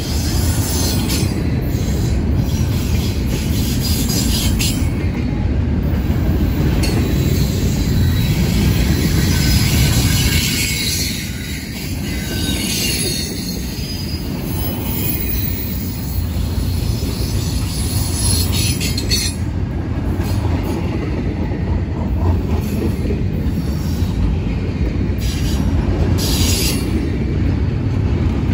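CSX intermodal freight train's double-stack well cars rolling past at close range: a steady rumble of steel wheels on rail, with brief higher-pitched wheel noise every few seconds.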